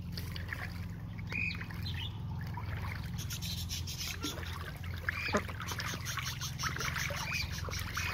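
White domestic ducks splashing and paddling in a plastic paddling pool, water sloshing and trickling as they dip and preen, with short bird chirps now and then over a steady low rumble.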